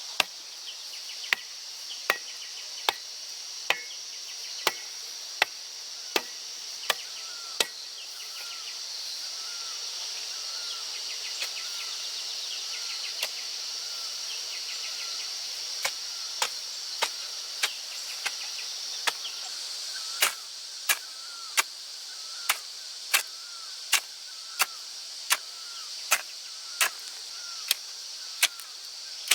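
Steady, evenly spaced chopping strikes of a hand tool, about one every three-quarters of a second, pausing for several seconds midway and then resuming. A continuous high-pitched drone runs under them.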